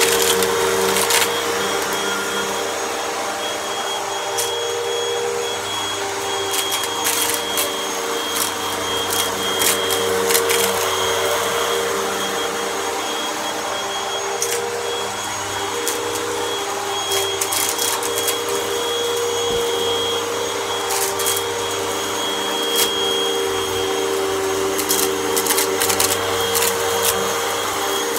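Vacuum cleaner running steadily, with short crackles scattered throughout as small debris is sucked up.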